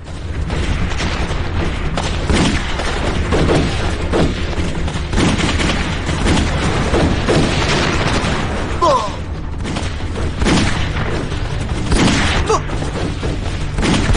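Battle sound effects of a film gunfight: a dense din of rifle and pistol shots and booms over a steady low rumble, with shouting voices now and then.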